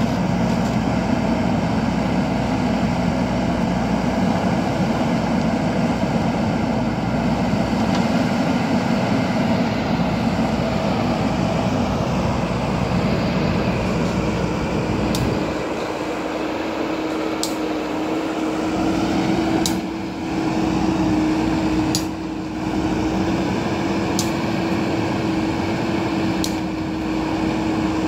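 JCB backhoe loader's diesel engine running steadily as the machine works. About halfway through, a steady pitched hum sets in and holds, with a few faint sharp ticks scattered over it.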